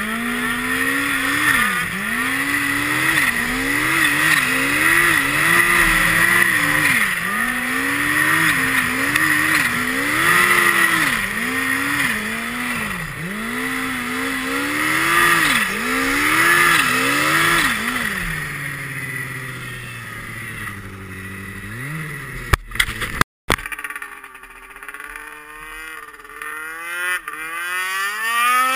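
Turbocharged snowmobile engine under hard throttle, its pitch rising and falling again and again as the rider works the throttle. About two thirds of the way in it eases off to a lower, quieter note, broken by a couple of sharp clicks and a brief cut-out, then picks up again near the end.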